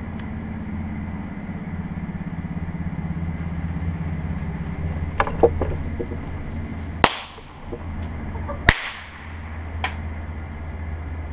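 Firecracker packed into an apple going off: a few small crackles, then two loud sharp bangs about a second and a half apart and a fainter crack a second later, over a steady low hum.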